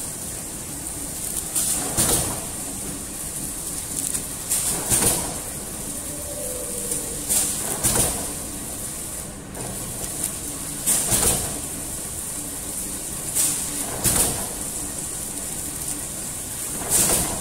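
450XWS servo flow-wrapping machine running, with a steady high whine and a two-part clatter about every three seconds as it seals and cuts each film-wrapped dough-stick pack.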